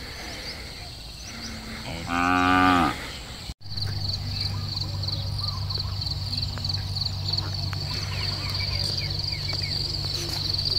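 A water buffalo lows once: a loud moo about a second long, falling in pitch, about two seconds in. After a sudden break, insects trill steadily with a rapid high pulsing over a low steady hum.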